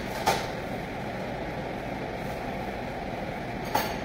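Plastic cling film being pulled and torn off across a dispenser's cutter while wrapping apples: two quick sharp swishes, one just after the start and one near the end, over a steady background drone.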